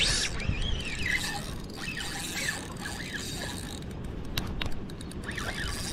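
Spinning reel being cranked on a retrieve, its gears whirring with a few sharp clicks, under steady wind buffeting the microphone.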